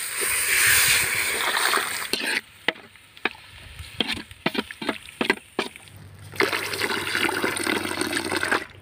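Onion-tomato masala sizzling in a metal kadai as chilli and masala powders are stirred in. Then a steel ladle clinks and scrapes against the pan several times, and for the last few seconds water is poured into the gravy with a steady splashing trickle.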